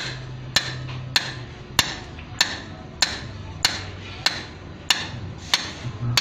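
Hammer striking a metal rod in a steady rhythm: about ten sharp, ringing blows, a little under two a second.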